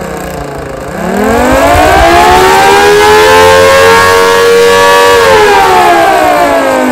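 3D-printed mini Thunderbolt-style siren, driven by a 775 motor with a six-port and a five-port chopper for a dual tone, sounding loudly. Its pitch bottoms out about a second in, winds up to a steady tone by about three seconds, holds, then winds down from about five seconds in.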